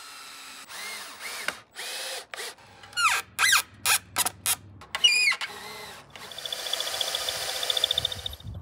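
Cordless drill driving screws through a wooden board into a pine tree trunk. The motor starts and stops in a series of short bursts, speeding up and slowing down, then runs steadily for about two seconds near the end.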